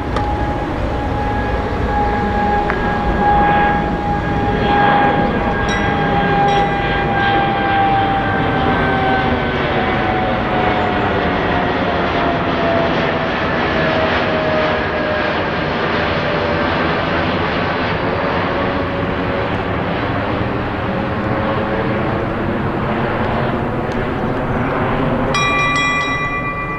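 Jet airliner passing by: a steady engine roar with a whine that falls slowly in pitch as the aircraft goes past. Near the end a different, higher steady whine cuts in.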